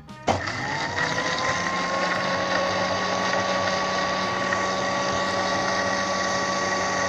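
Electric countertop blender switched on about a third of a second in. Its motor whine rises to a steady pitch within the first second, then it runs steadily, blending mango pieces in milk.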